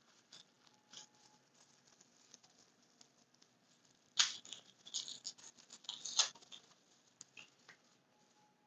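Small rustles, crinkles and clicks of a watch being picked out of a mixed lot and handled, with a louder cluster about four seconds in and another around six seconds.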